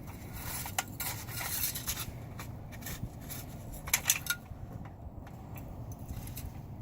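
Toy excavator's plastic bucket scraping and digging through snow, a run of irregular scrapes and small clicks, busiest in the first few seconds, with a few sharper knocks about four seconds in.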